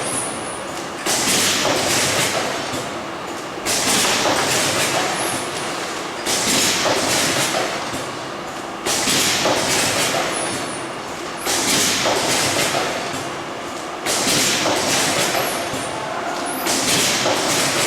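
Packaging machine running through its cycle, a sudden hissing thump about every two and a half seconds that fades before the next, seven times over.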